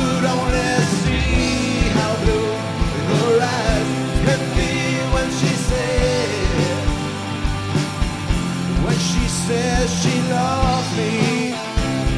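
Live rock band playing an instrumental passage: electric guitars, bass, drums and keyboard over a steady drum beat, with a lead line that bends in pitch.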